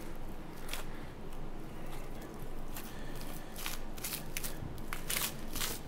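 A butcher's knife cutting along the seams of dry-aged beef while the meat is peeled apart: a few short, irregular scraping crackles as the blade passes through the dry, hardened surface of the meat.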